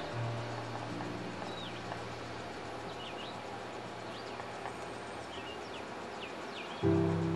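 Scattered short bird chirps over a steady hiss of outdoor background noise. A low held music note lingers for the first couple of seconds, and a new music chord comes in near the end.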